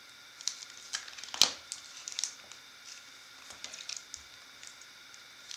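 Clear plastic card sleeve being handled as a chrome trading card is slid into it: scattered crinkles and small clicks, the sharpest about a second and a half in.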